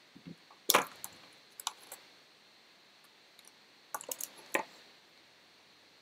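Scattered light clicks and metallic clinks of a screwdriver and small computer parts being picked up and handled, with a sharper click a little under a second in and a quick cluster of clinks around four seconds in.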